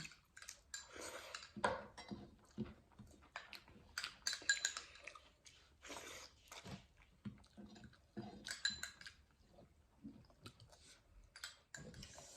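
Close-up chewing and mouth smacks of people eating, in short irregular bursts, with occasional light clinks of dishes.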